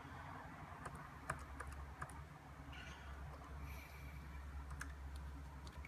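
Computer keyboard keys pressed one at a time, a scattering of sharp clicks while paging through BIOS menus, over the steady low hum of the running computer.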